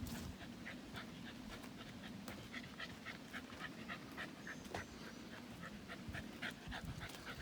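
A dog panting rhythmically, about three breaths a second, after swimming in a creek.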